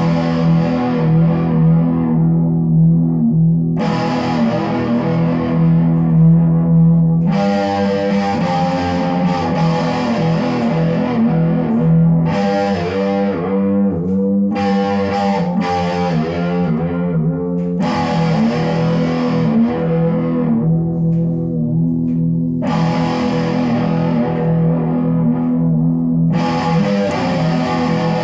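Electric guitar played through effects with some distortion: long sustained notes ring over a steady low drone, fresh notes struck every few seconds, with wavering bent notes in the middle.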